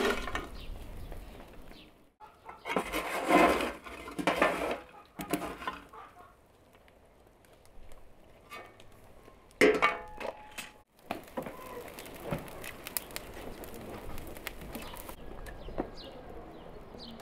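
Metal clanking and scraping from a charcoal barbecue's revolving skewer wheel and grill as they are handled. There is one sharp ringing clang about ten seconds in, and from then on the coals crackle steadily with many small pops.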